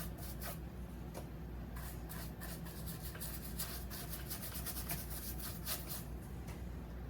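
A brush being stroked over the rough surface of a wood slab, working penetrating epoxy into it: a quick, irregular run of short scratchy strokes over a low steady hum.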